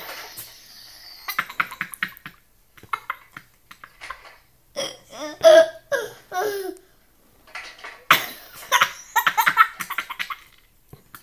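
Laughter in short, repeated bursts, some breathy and some pitched.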